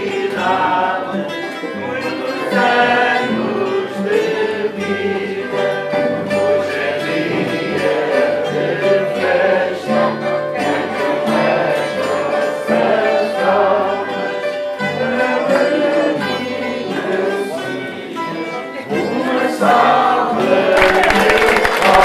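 A small group of acoustic guitars strumming and plucking a Portuguese folk tune, with singing over it. Near the end, hand-clapping applause comes in.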